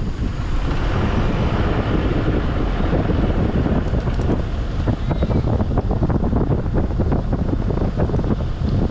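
Wind buffeting the microphone: a loud, steady rumble with constant fluttering.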